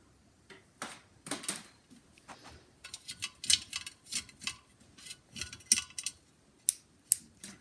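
Irregular clicks and light clatter of small hard parts being handled, scattered throughout: a lamp being fiddled with while it fails to light.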